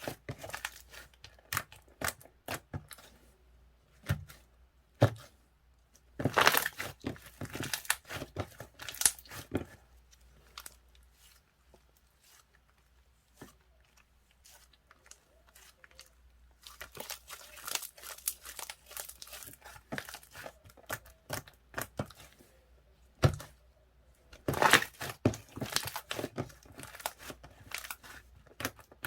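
Thin wrapping material crinkling and tearing close up, in several bursts of crackly handling with quiet pauses between.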